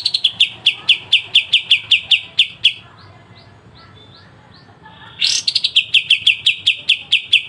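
Kapas tembak bulbul giving its sharp 'besetan' call: a fast run of clear, piercing notes repeated about five times a second. The run stops about three seconds in, a few faint notes follow, and a second run starts after about five seconds.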